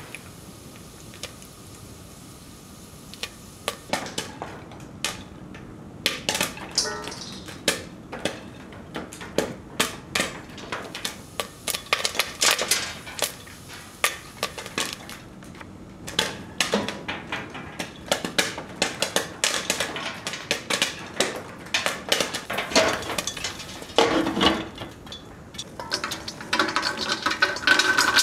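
Popcorn kernels popping in a pan: a few scattered pops at first, then quickening to rapid, irregular popping. A denser rattle comes near the end.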